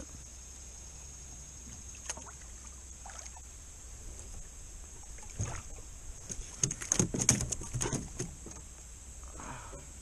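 A catfish hauled from a trotline thrashing and knocking against the aluminum hull of a jon boat, a burst of clattering knocks a little past halfway. Insects keep up a steady high drone underneath.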